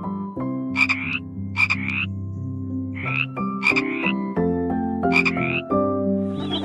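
Frog croaking: about nine short, rising, pulsed calls, several of them in pairs, over background music with sustained notes.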